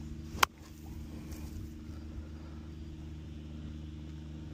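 A golf wedge striking the ball on a short approach shot: one sharp click about half a second in, over a steady low hum.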